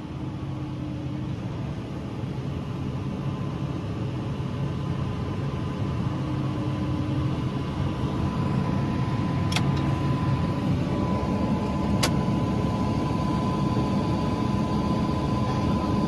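Tractor engine running steadily under load, heard from inside the cab, growing slowly louder. A steady high whine comes in about halfway, and there are two sharp clicks a couple of seconds apart.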